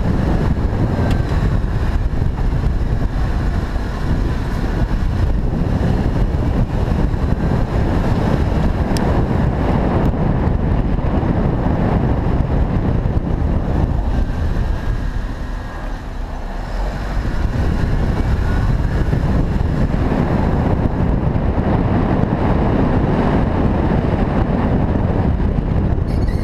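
Road and wind noise of a moving Acura RSX, steady and loud, easing briefly about two-thirds of the way through before picking up again.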